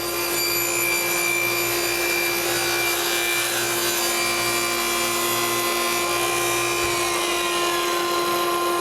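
Table saw running at steady speed with a constant hum, its blade cutting partway across the melamine base of a crosscut sled.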